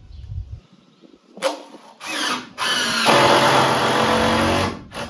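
Power drill driving a screw: two short bursts, then a steady whining run of about two seconds that stops, and a brief last blip.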